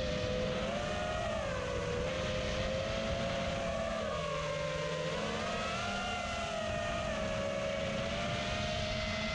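FPV drone's motors and propellers whining, the pitch wavering up and down with the throttle, dipping about halfway through and rising again, over a steady rushing noise.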